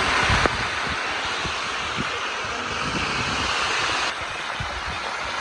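Whole crabs deep-frying in a wide pan of hot oil: a steady, loud sizzle and bubbling. There is a short knock about half a second in, and about four seconds in the sizzle drops abruptly to a slightly quieter level.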